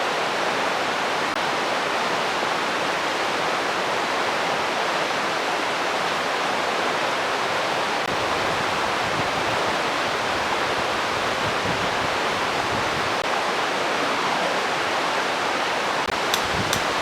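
Steady rushing of running water, even and unbroken, with a few light clicks near the end.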